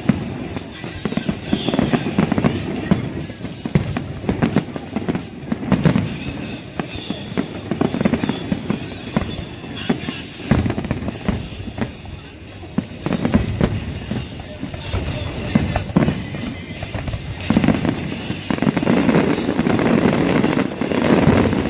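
Music mixed with many fireworks bursts and crackles, in quick succession.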